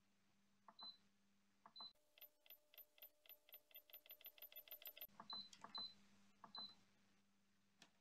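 Faint button presses on a White Whale DWA-0602S countertop dishwasher's control panel, each a soft click with a short high beep. In the middle comes a fast run of clicks that speeds up, then a few more single beeping presses.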